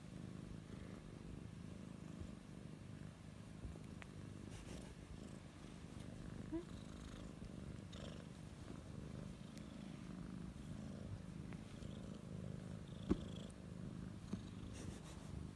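Kitten purring steadily while being stroked: a low, continuous rumble made of rapid fine pulses. One sharp tick stands out about thirteen seconds in.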